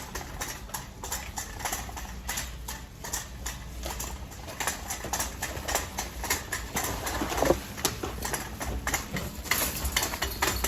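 A rapid, irregular run of clicks and knocks from movement through a store aisle, such as footsteps and a rolling shopping cart on a hard floor, over a low steady hum.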